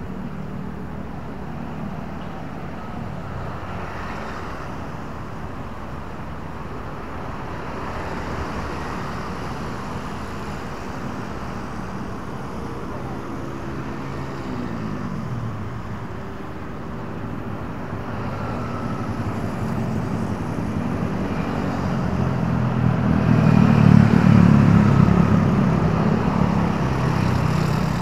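Road traffic of cars and motorbikes passing on a street. One engine's pitch falls away about halfway through, then a louder vehicle comes close and passes, loudest about four seconds before the end.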